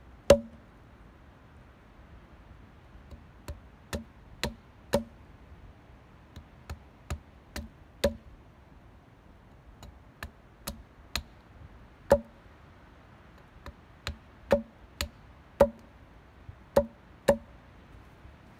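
Hatchet chopping a point onto the end of a wooden stake: about twenty sharp wooden knocks at an uneven pace, in short runs with pauses between.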